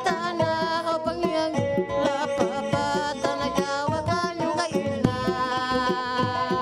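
A man singing a folk song with a wavering melody, accompanied by a small plucked and strummed string instrument and steady hand-drum beats.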